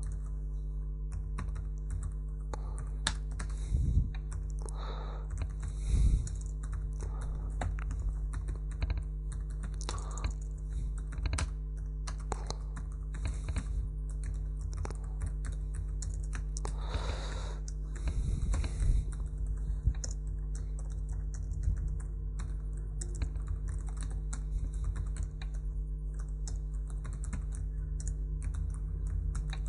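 Typing on a computer keyboard: a continuous run of irregular key clicks, with a few louder key strikes, over a steady low electrical hum.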